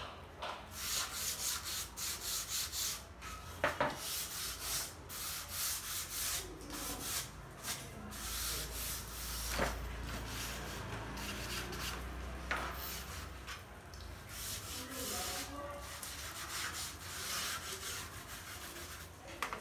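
Wooden floor plank being rubbed and sanded by hand with a small block in quick repeated back-and-forth strokes, with a couple of sharper wooden knocks in between.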